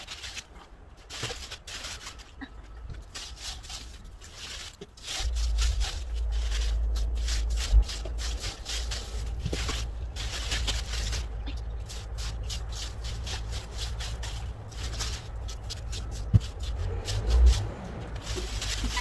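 Long-handled broom sweeping dry orange-tree leaves over bare earth in quick, repeated brushing strokes. From about five seconds in a steady low rumble runs underneath, with a few sharp knocks.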